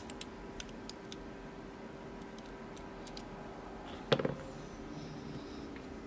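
Light metallic clicks of a dimple lock pick and tension wrench working in a Mul-T-Lock C-13 padlock's pin-in-pin cylinder: a few small ticks in the first second, then a louder short cluster of clicks about four seconds in.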